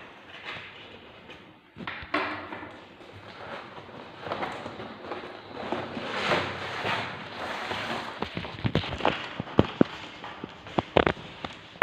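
Rustling and crinkling of a boxed keyboard's packaging as it is handled and unpacked, then a run of sharp, irregular clicks and taps in the second half.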